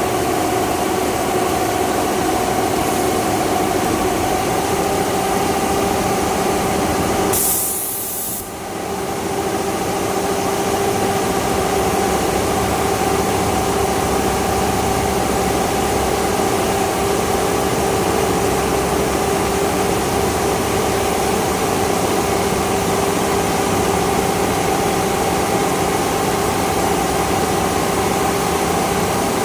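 Automatic duvet sewing machine running with a steady mechanical hum and a constant whine. About seven seconds in there is a short, high hiss, and the hum briefly drops.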